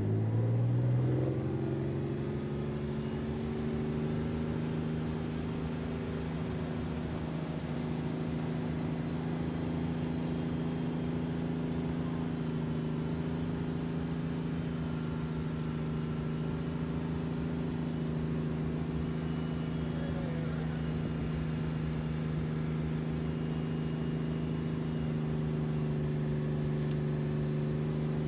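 Wakeboard tow boat's engine throttling up, its pitch rising over the first two seconds as it pulls the rider up out of the water, then running at a steady towing speed.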